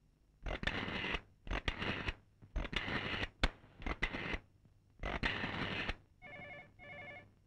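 A rotary telephone dial being turned and let run back five times, each return a quick run of clicks. Then the ringback tone sounds in the handset, one double ring of two short pulses, the sign that the call has gone through and the other phone is ringing.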